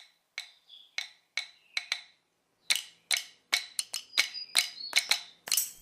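Percussion opening a reggae song: sharp, woodblock-like clicks with a short bright ring. They are sparse at first and come faster and denser from about halfway through.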